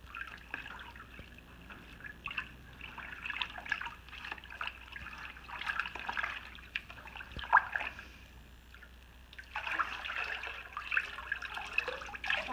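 Water sloshing and splashing in a plastic tub as gloved hands swish through the hydro-dip bath, with one sharper splash about halfway through. Near the end, water streams off the dipped ammo box as it is lifted out.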